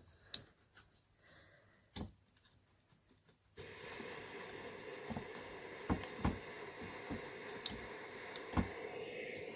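Steam iron pressing a ribbon strip on an ironing board: a few light taps, then a steady hiss that starts suddenly about three and a half seconds in and carries on, with occasional knocks of the iron against the board.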